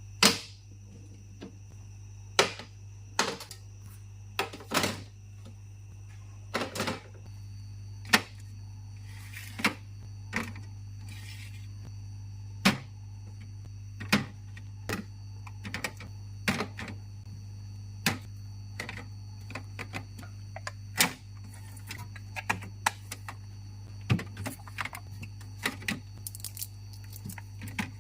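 Groceries and containers being set down and arranged in a refrigerator: a long series of irregular sharp clicks, clacks and knocks, over a steady low hum.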